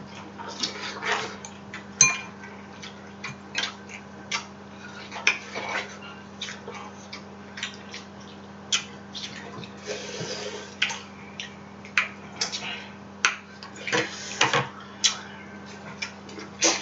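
Hands eating a seafood boil: irregular sharp cracks and clicks of crab leg shells being broken open, with short wet smacking sounds, over a faint steady hum.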